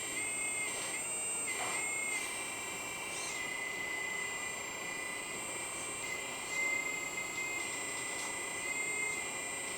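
Hydraulic oil pump of an RC excavator running with a steady high whine, its pitch dipping briefly a few times as the valves are worked and the pump takes load.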